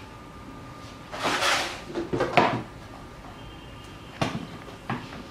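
Kitchen gadgets handled on a tabletop: a scraping rush about a second in, then a few knocks, and two sharp clicks near the end.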